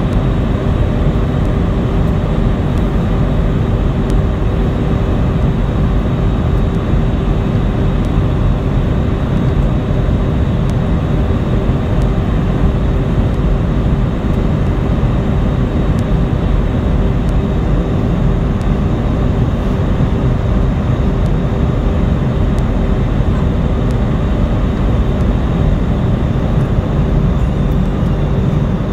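Steady jet airliner cabin noise in flight: engine and airflow roar, heavy in the low end, with a steady hum running under it.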